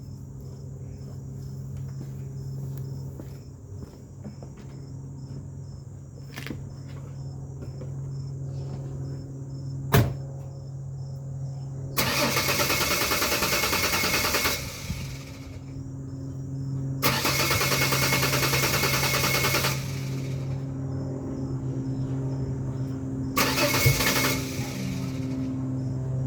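2001 Ford Ranger's 4.0 V6 being cranked on the starter in three bursts of about two to three seconds each, over a steady low hum, with a sharp click about ten seconds in. It is the truck's cold-morning hard start: it cranks but won't fire.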